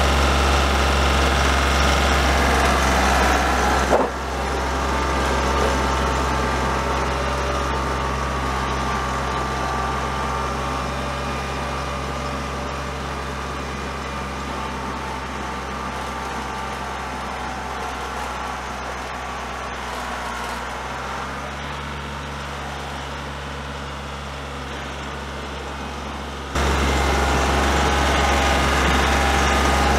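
Compact tractor's diesel engine running steadily as it drives through deep snow. Loud and close at first, it drops abruptly about four seconds in to a fainter, distant hum, then comes back loud and close near the end.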